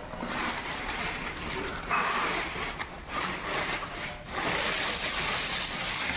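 Rustling and scraping of TV packaging being handled as a flat-screen TV is unpacked from its box, in irregular noisy bursts.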